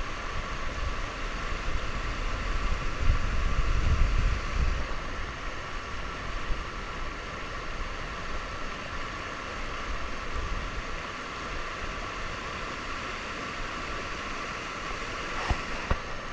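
Steady rush of flowing river water, with a low wind rumble on the microphone about three to four seconds in and a sharp click near the end.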